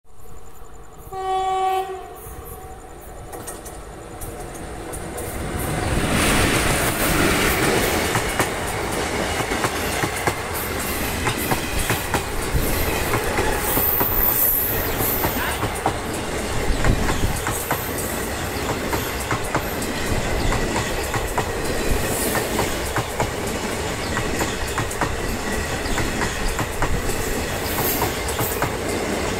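WAP-4 electric locomotive sounds one short horn blast about a second in. The train grows louder as it approaches, and from about six seconds in the locomotive and its passenger coaches pass close by, wheels clattering steadily over the rail joints.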